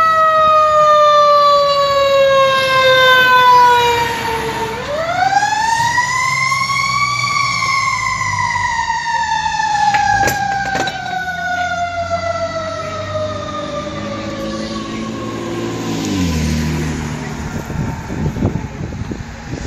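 Fire truck siren in a long, slow falling wail that sweeps back up to a high pitch about five seconds in, then slides down again and dies away about sixteen seconds in. The truck's engine rumbles underneath.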